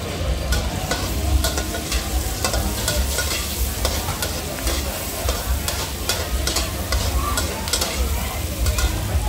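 Stir-frying in a wok: a metal spatula scraping and clacking against the wok many times at an uneven pace over the hiss of food sizzling in hot oil, with a steady low rumble underneath.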